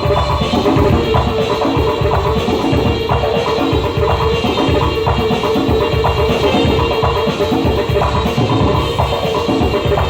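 A band playing during a sound check: a drum kit with bass drum keeps a steady beat under held instrument tones, at a loud, even level.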